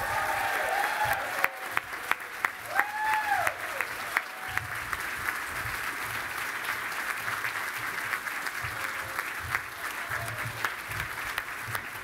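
Large audience applauding steadily, a little louder in the first few seconds.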